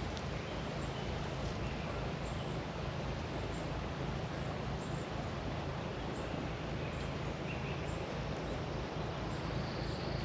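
Steady outdoor background noise with a few faint, short high-pitched chirps.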